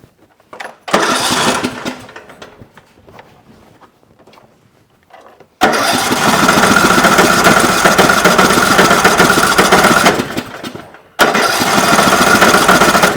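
Troy-Bilt Pony riding mower's Briggs & Stratton engine cranked by its electric starter three times: a short try, a long one of about four seconds, then another of about two seconds. It turns over without catching, cranking but not starting because no fuel is getting to it.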